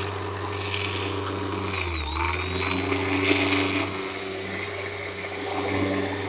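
Bissell Lift-Off upright vacuum cleaner running, its motor hum and whine sagging briefly in pitch about two seconds in and then recovering, with a rush of air. The motor is straining and weak, which the owner takes for a motor at the end of its life.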